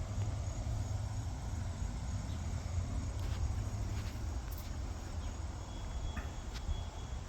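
Background ambience: a steady low rumble, with a thin, steady high tone joining about six seconds in and a few faint clicks.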